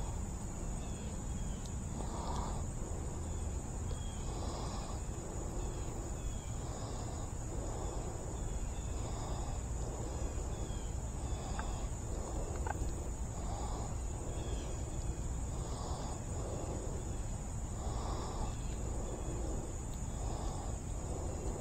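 Steady high-pitched insect chorus, with a softer call repeating about every two seconds over a low outdoor rumble.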